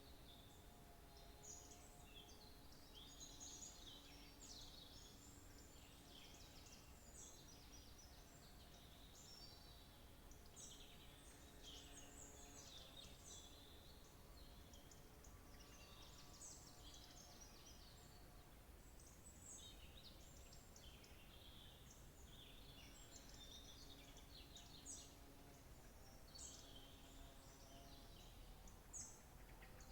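Faint chorus of many small songbirds chirping and twittering, overlapping short high calls without pause. Faint low steady tones come and go beneath them.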